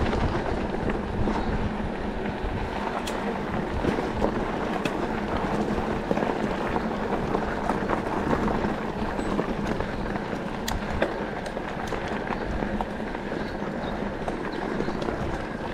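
Electric mountain bike being ridden on a rough trail: a steady rush of tyre and wind noise, with scattered sharp clicks and rattles.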